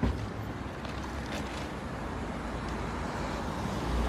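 A single thump right at the start as a heavy bag of pet food is set down in a car's boot, then steady outdoor street and traffic noise with wind rumbling on the microphone.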